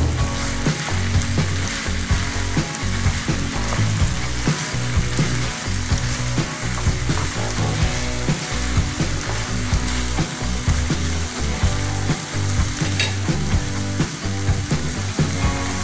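Minced meat, tomato and eggplant chunks sizzling in a frying pan while a wooden spatula stirs and scrapes through them.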